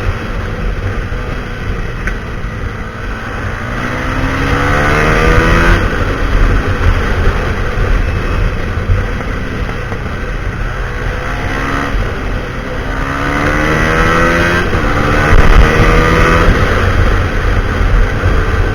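Husqvarna SMR 511 supermoto's single-cylinder engine through a full Akrapovic exhaust, pulling hard twice with its pitch climbing in steps, about four seconds in and again about twelve seconds in, over a steady low rumble.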